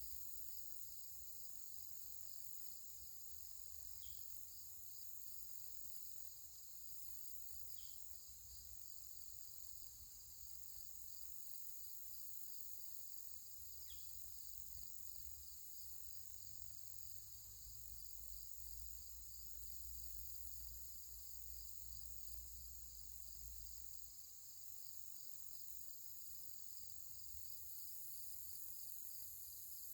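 Faint steady chorus of insects, a fast pulsing high trill that never lets up, with a few brief high chirps in the first half and a low rumble underneath.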